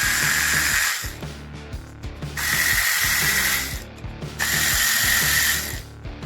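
A power tool spinning bolts out of an engine during teardown, running in three bursts of about a second each. Background music plays underneath.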